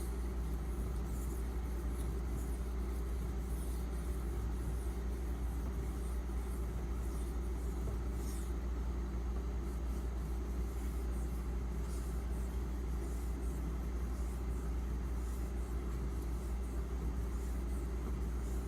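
Steel knife blade stroked over the 6000-grit side of a combination water stone, with faint, even, repeated scraping swishes of edge on stone. A steady low hum runs underneath.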